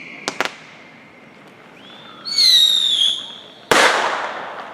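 Fireworks going off. Two quick sharp cracks come first, then a whistling firework's shrill tone falls slightly for about a second, then comes one loud bang with a tail that dies away.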